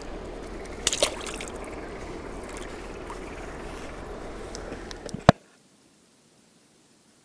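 Water sloshing and splashing as a crucian carp is handled in a landing net at the water's edge. A few sharp splashes come about a second in and a loud slap just past five seconds, after which the sound cuts off to near silence.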